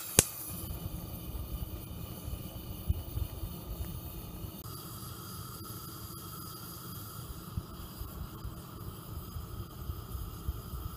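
Gas hob burner flame burning with a steady, uneven low rumble and a faint hiss. A single sharp click comes just after the start.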